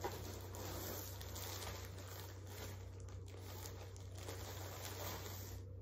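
Plastic packaging crinkling and rustling as it is handled and pulled open, with a sharp click right at the start.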